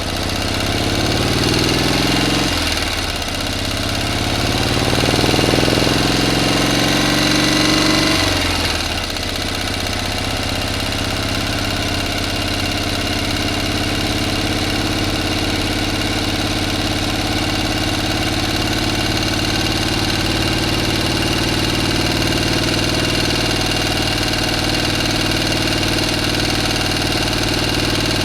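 A motor engine revving up twice, its pitch climbing and then falling off each time, then settling into steady running.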